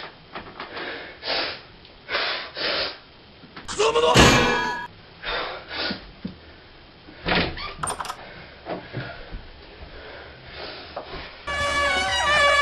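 A string of thumps and bangs with yelling, overlaid with dubbed cartoon sound effects: a loud effect about four seconds in, a short high one near eight seconds, and a loud pitched effect that starts near the end with its pitch sliding down.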